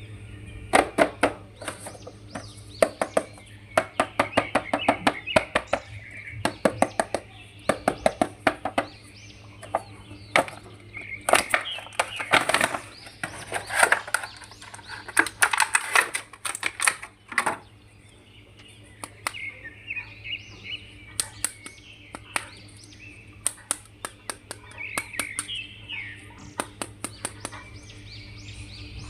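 Hard plastic clicking, tapping and rattling as an action figure and its packaging are handled and opened, with birds chirping in the background over a steady low hum.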